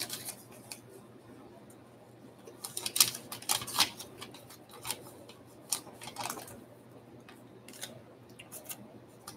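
Trading cards and their packaging being handled: irregular crisp crinkles, rustles and small clicks.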